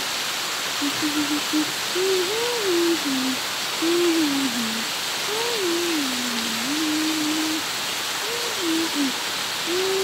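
Steady heavy rain falling on tree foliage, with a person humming a slow, wavering tune over it.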